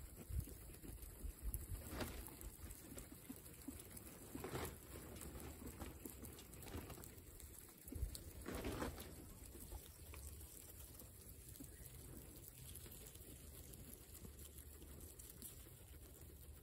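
Guinea pigs feeding in straw: faint rustling of dry straw and nibbling of grass and vegetable pieces, with a few louder rustles about two, four and a half, and nine seconds in.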